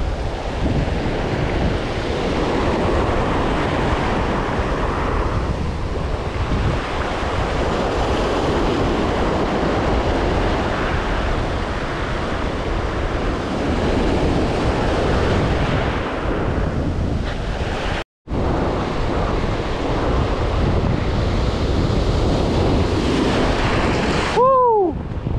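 Rough surf washing and breaking, with wind buffeting the microphone. The sound drops out for a split second about two-thirds of the way through, and near the end a short tone slides down in pitch.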